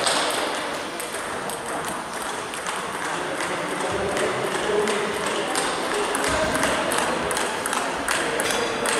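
Table tennis balls ticking off bats and tables in irregular clicks, thicker in the second half, over a murmur of voices in the hall.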